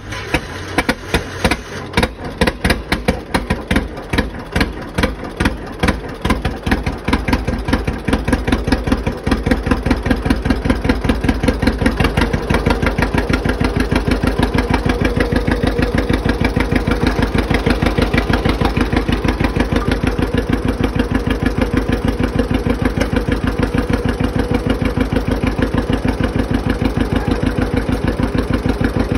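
John Deere 50's two-cylinder engine just after starting, firing unevenly with irregular pops for the first several seconds, then settling into a steady, even idle about ten seconds in.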